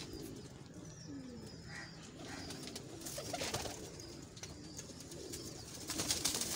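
Domestic pigeons cooing softly in a loft. About three seconds in and again near the end comes a rustling flurry of wing flaps.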